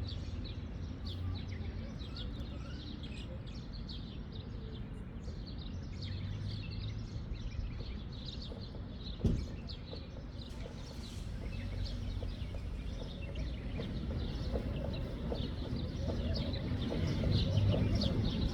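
Many small birds chirping rapidly and continuously over a steady low background rumble, with a single sharp knock about halfway through.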